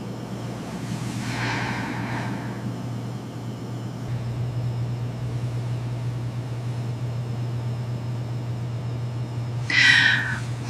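A steady low hum with a person's breathing over it: a soft breath about a second and a half in and a louder gasp near the end.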